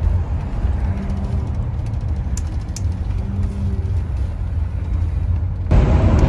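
Steady low engine and road rumble inside a moving motorhome's cab, with a faint engine hum that comes and goes. The rumble gets louder and rougher about five and a half seconds in.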